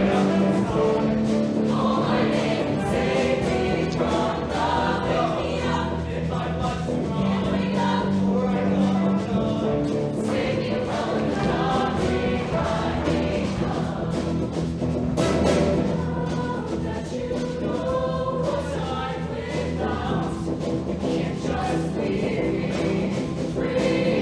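Show choir singing in harmony over a live band accompaniment, with sustained bass notes under the voices.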